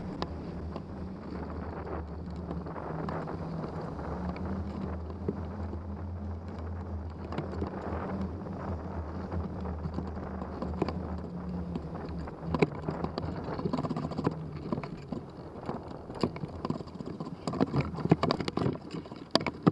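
Wind rushing past a hang glider's wool-covered camera microphone in low flight, with a low steady hum under it. Near the end the hum fades and irregular knocks and rattles take over as the glider comes down on the sand to land.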